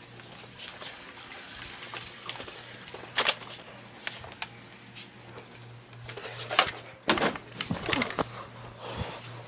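Scattered knocks, clicks and rustling from someone moving about while handling the camera, over a low steady hum, with the loudest knocks about three seconds in and again around six to seven seconds in.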